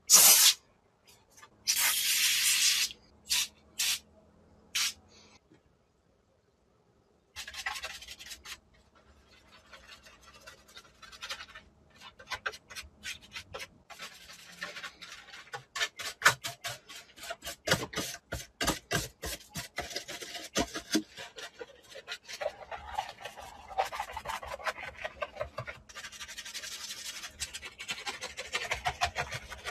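A few short hisses of a foam sprayer, the longest lasting about a second, then after a short pause a soft detailing brush scrubbing thick wash foam over a small plastic RC car body in quick, uneven rubbing strokes.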